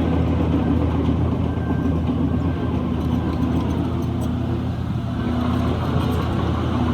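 Heavy diesel engine of earthmoving machinery running steadily with a low drone.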